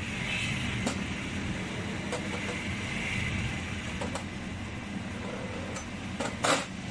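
Light clicks and knocks of a Honda CG125's aluminium cylinder head being handled and turned over on a metal workbench, with a short clatter near the end, over a steady low background hum.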